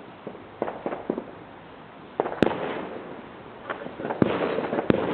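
Fireworks going off: a string of sharp bangs and cracks with crackling in between, the loudest bang about two and a half seconds in and another near the end.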